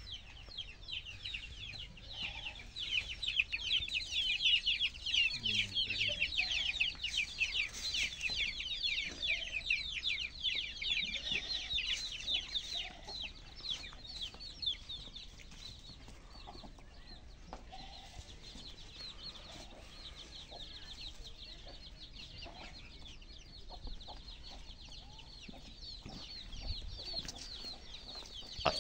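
Many birds chirping and peeping in a dense, continuous chorus of rapid high calls, loudest in the first half and thinning somewhat in the second.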